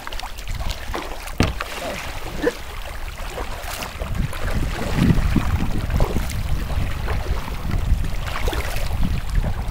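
Wind buffeting a kayak's deck-mounted camera microphone as a low, unbroken rumble, with choppy water splashing and lapping against the hull in scattered short slaps.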